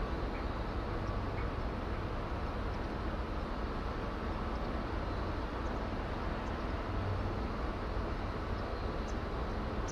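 Steady outdoor background rumble and hiss, heaviest in the low end, with a few faint short high chirps near the end.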